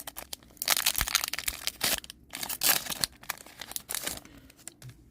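Foil wrapper of a Pokémon trading card booster pack being torn open and crinkled by hand, in irregular bursts of crackling with short pauses between them.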